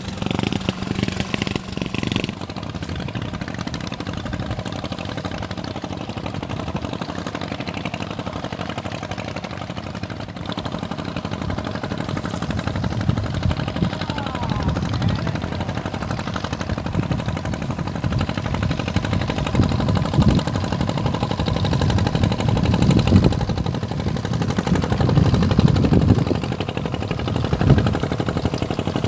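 A small boat's engine running steadily, with low rumbling surges in the second half.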